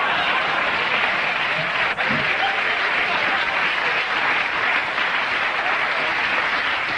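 Studio audience applauding, a steady even clapping.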